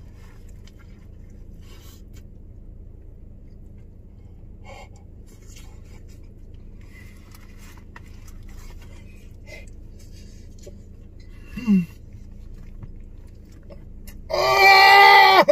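A man eating a sandwich, with faint ticks and rustles over a steady low hum inside a parked car; a short falling "mm" comes about two-thirds of the way in. Near the end comes a loud, drawn-out moan of delight that falls in pitch as it ends.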